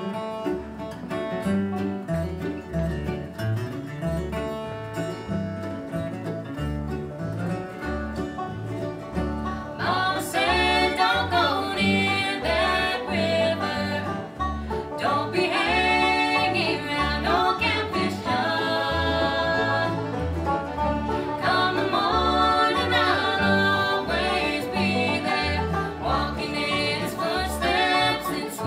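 Bluegrass band playing live: banjo, mandolin, acoustic guitar, fiddle and upright bass on an instrumental intro, with a woman's lead vocal coming in about ten seconds in and carrying on over the band.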